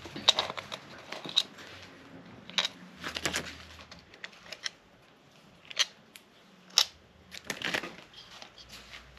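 Scattered metallic clicks and clinks at irregular intervals, like hand tools and small metal parts being picked up and set down.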